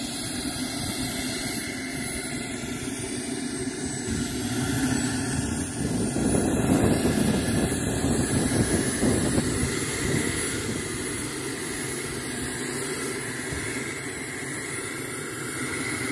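Small model-jet turbine in a Pichler L-39 Albatros RC model idling on the ground: a high-pitched whine that sags and recovers, over a rushing exhaust noise that swells for a few seconds in the middle.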